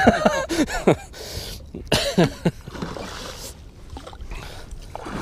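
Hooked musky splashing and thrashing at the surface beside the boat. Short excited voices can be heard near the start.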